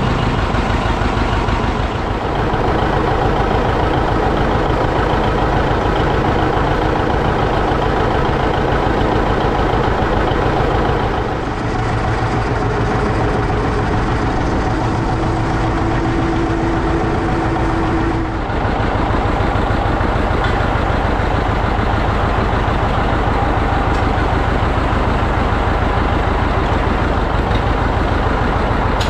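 Heavy engine running steadily, dipping briefly about eleven and eighteen seconds in.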